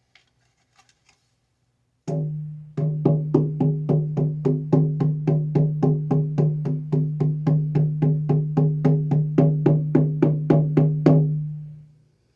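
10-inch elk-hide frame drum struck once, then beaten in a steady rhythm of about three and a half strikes a second, each beat sounding over a sustained low ringing tone that dies away after the last stroke.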